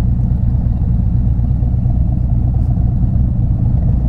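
Harley-Davidson V-twin engine running at a steady, even speed, a low rumble with no revving.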